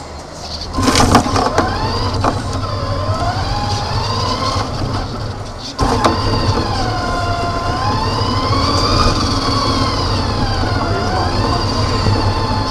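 Motor of a model Mercedes vehicle running as it drives, a whine over a low hum that rises and falls in pitch with its speed. It starts about a second in and briefly drops out with a click near six seconds.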